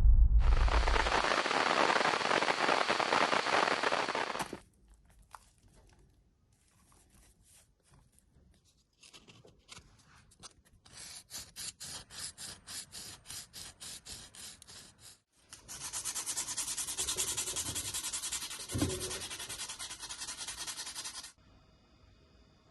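Sandpaper rubbing on a wooden kitchen-knife handle by hand. A continuous rasping run opens the sound. After a pause come quick back-and-forth strokes, then a denser run of sanding near the end.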